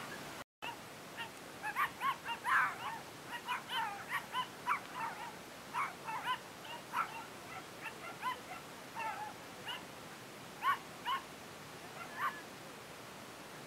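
A dog whining and yipping in short, high-pitched cries. The cries come in a quick run for a few seconds, then at wider gaps.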